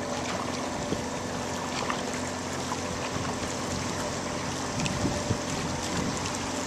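Water rushing past a moving boat with wind buffeting the microphone and a steady low hum underneath, while faint light splashes of canoe paddles come roughly once a second.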